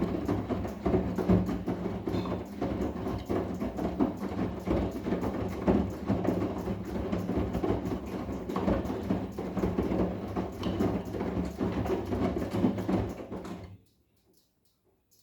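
Arçelik 10121 washing machine running, with a steady motor hum under irregular thuds and sloshing as the drum turns the load. It stops abruptly near the end.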